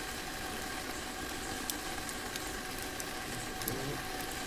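Steady background hiss with a faint steady hum, and a few faint ticks.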